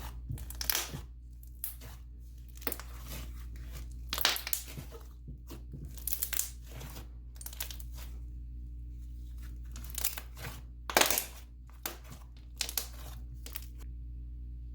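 Thick clay slime with plastic snow mixed in being poked, pressed and stretched by hand, giving irregular squishes and small pops, the loudest about 11 seconds in.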